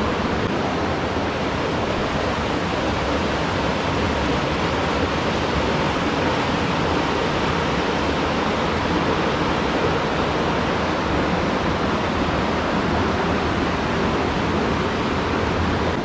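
River water rushing steadily over rocks and small rapids, an even, unbroken roar of running water.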